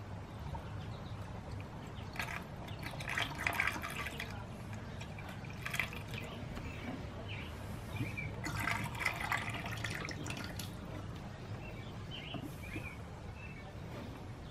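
50-50 coolant being poured from a jug into a Kawasaki Vulcan 900's coolant filler, with faint, irregular gurgling that is strongest about three seconds in and again around nine seconds in. The gurgling is the sign of the coolant coming up to the top of the filler.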